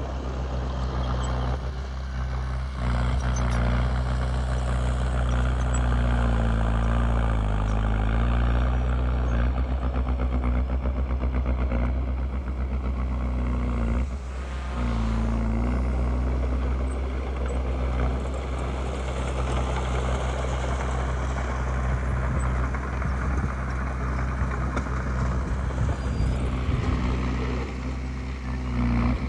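Heavy diesel machinery engine working under load, the engine note sagging and recovering several times around the middle and dipping briefly about halfway through.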